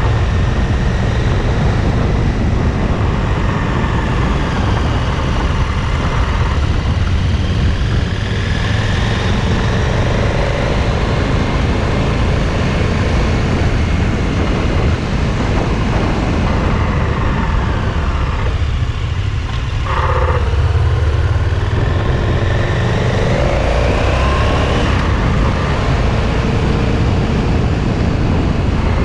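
KTM 1290 Super Adventure's V-twin engine running on the move, its pitch rising and falling as the rider rolls on and off the throttle, over a steady rush of noise. The revs drop off about two-thirds of the way through, then climb again.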